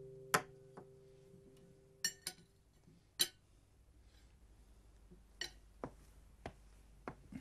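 Plates, dishes and glassware being set down on a dining table: a scattering of light clinks and knocks, about nine in all. The last notes of soft music fade out in the first second or so.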